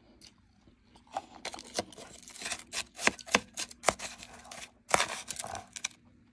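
Metal spoon scooping through blender-crushed ice in a plastic container: a dense run of crunchy scraping and clicking that starts about a second in, with a short break about two-thirds of the way through.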